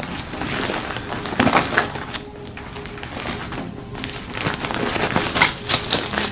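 Packaging rustling as small jewellery items are handled and unwrapped, with scattered clicks and taps.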